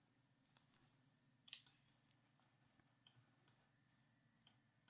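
A few faint, short computer-mouse clicks against near silence: a quick pair about one and a half seconds in, then single clicks about a second apart.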